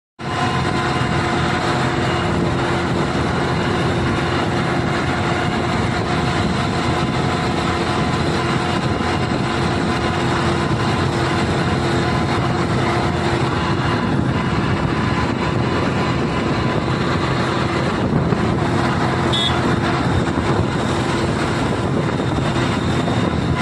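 Motor vehicle engine and road noise running steadily with a constant hum, as on a drive along a highway. A brief high beep sounds near the end.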